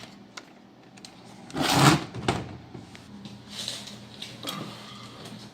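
Jeep XJ door lock mechanism worked by hand with the door panel off: a small click near the start, then a louder mechanical clack about two seconds in and a smaller one just after, with faint scraping of the linkage.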